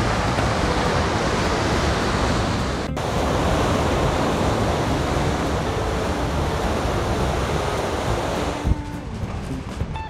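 Ocean surf breaking and washing on the shore, with wind buffeting the microphone. Near the end the surf drops away and background music with short melodic notes takes over.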